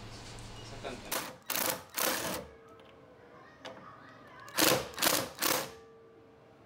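A cordless 3/8-inch ratchet wrench spins a bolt out of the radiator support panel through a socket extension. It runs in short bursts, two sets of three quick runs.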